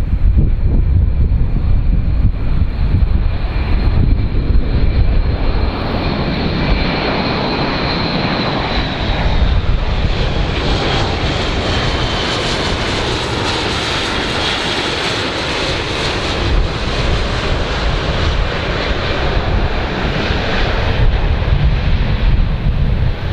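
Large aircraft's engines roaring as it passes, the sound building to a peak mid-way with a high whine that drifts slightly lower, then easing off. Wind buffets the microphone with a low rumble.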